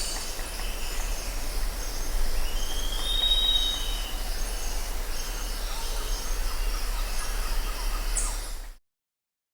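Jungle ambience: a steady high-pitched chorus with bird calls over it, including one drawn-out whistled call that rises and falls about three seconds in. It cuts off suddenly near the end, leaving silence.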